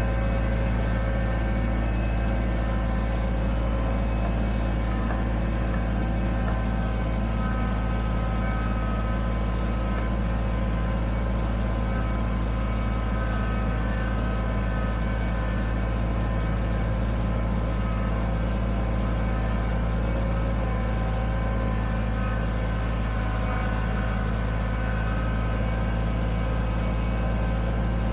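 Kubota BX25D sub-compact tractor's three-cylinder diesel engine running steadily at an even speed while the tractor pushes snow with a loader-mounted plow blade.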